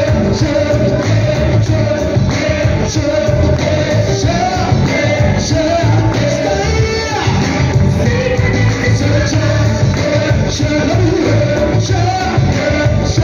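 A live gospel praise band playing: male and female singers singing into microphones over electric guitar and a drum kit keeping a steady beat.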